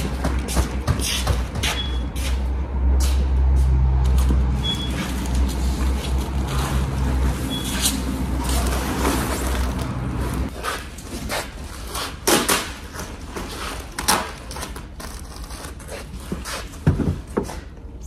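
Foil-faced insulation boards crinkling, scraping and knocking as they are handled and stacked. Under them runs a low machine drone that stops about ten seconds in, with three short high beeps a few seconds apart before it.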